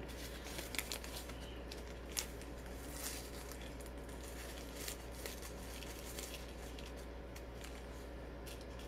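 Sequins being shaken out of a zip-top plastic bag into a shaker-card window: scattered light ticks of sequins landing, with small rustles of the bag.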